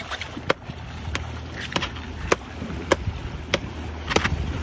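A regular series of sharp knocks, about one every 0.6 seconds, from the side of a fiberglass panga as a blue marlin is held and clubbed at the gunwale, over the low steady hum of the boat's engine.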